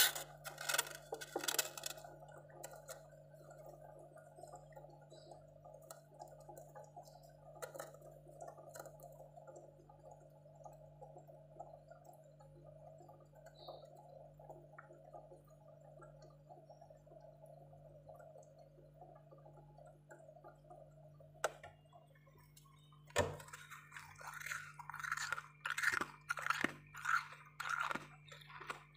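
A spoon scraping packed freezer frost in the first couple of seconds, then a long stretch of only a faint steady hum. From about two-thirds of the way in, close crunching in quick repeated bites, two or three a second: freezer frost being chewed.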